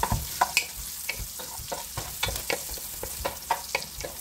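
Sliced ginger frying in hot oil and butter in a pot, sizzling with many short sharp clicks and pops while a wooden spoon stirs it around the pan.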